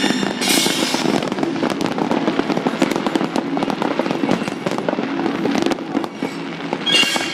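Fireworks bursting and crackling in dense, rapid succession. There are louder flurries of crackle just after the start and again near the end.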